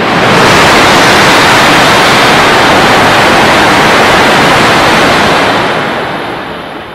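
Coupled E5 Hayabusa and E6 Komachi Shinkansen train passing through the station non-stop: a loud rushing noise that swells sharply as the train arrives, holds steady for about five seconds while the cars go by, then fades as the tail end draws away.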